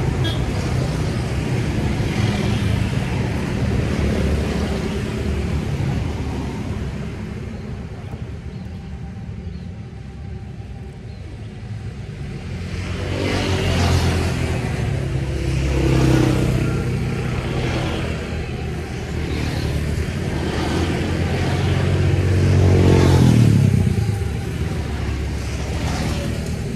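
Motor vehicle traffic: engines rumbling steadily and swelling several times as vehicles pass, quieter about a third of the way in and loudest a few seconds before the end.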